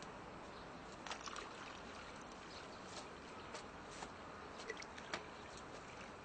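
Water poured from a plastic jug: a faint, steady trickle, with a few light clicks and taps scattered through it.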